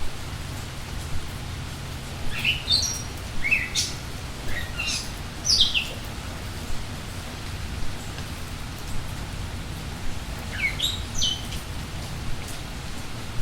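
Birds chirping in the rain: two bursts of short, quick chirps, one a couple of seconds in and another near the end, over the steady hiss of falling rain.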